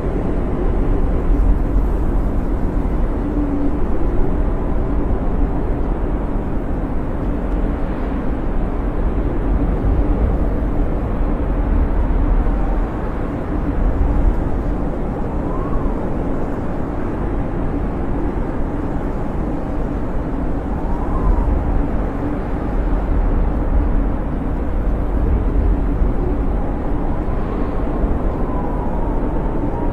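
Snowstorm wind blowing steadily with a deep rushing noise, and faint whistling tones that rise and fall now and then.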